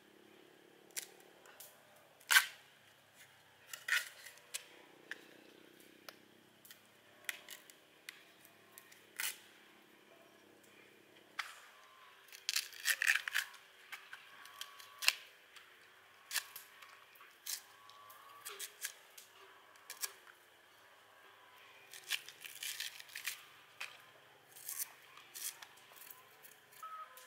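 Intermittent sharp clicks, taps and scrapes of objects being handled by hand, with one loud knock about two and a half seconds in and a quick run of clatter around thirteen seconds.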